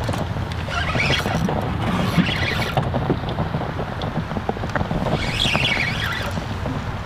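Alvey side-cast reel's line alarm clicking in bursts as a hooked fish pulls line against the drag, over a steady low rumble of wind on the microphone.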